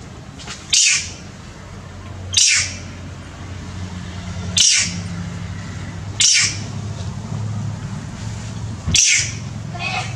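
Young long-tailed macaque giving five short, shrill distress screams a couple of seconds apart, in pain while its wound is cleaned and dressed. A steady low hum lies underneath.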